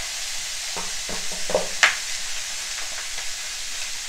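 Pork belly pieces sizzling as they fry in an aluminium pan while a wooden spatula stirs and scrapes them, with a few knocks of the spatula against the pan, the sharpest a little under two seconds in.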